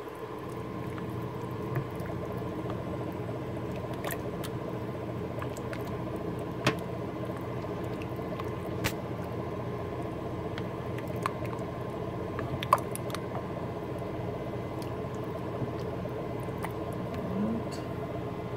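A pot of thick bean chili being stirred with a spoon in a slow cooker's crock: wet squishing and sloshing, with a few sharp clicks as the spoon knocks the side of the pot. A steady low hum runs underneath.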